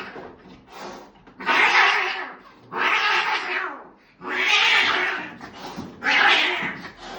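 A cat's loud, noisy, snore-like breathing: four long rasping breaths, one roughly every second and a half.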